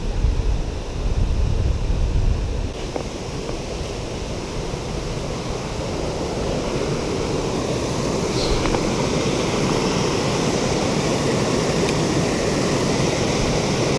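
Water rushing over a low concrete weir, a steady roar that grows gradually louder. Wind buffets the microphone for the first two or three seconds.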